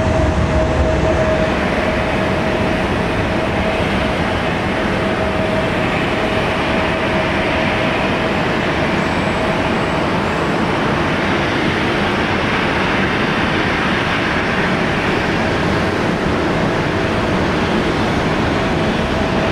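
Airbus A380's four jet engines at takeoff power, a loud steady rushing noise through the takeoff roll, lift-off and climb. A steady droning tone runs through it, fading about halfway and coming back near the end.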